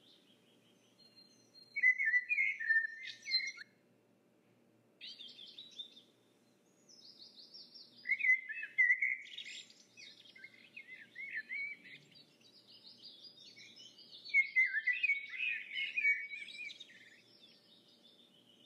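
A songbird singing in bursts of rapid warbling chirps and trills, with pauses of a second or more between the phrases.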